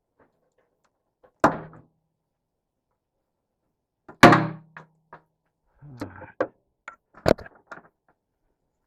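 Two loud thunks about three seconds apart, each with a short low ring after it, then a run of lighter knocks and clatter with one more loud knock near the end: hands and tools knocking against the boat while the old dock light fittings are worked loose.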